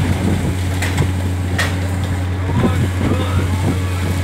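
Steady low drone of a fishing boat's engine and deck machinery, with a few sharp knocks from work on deck.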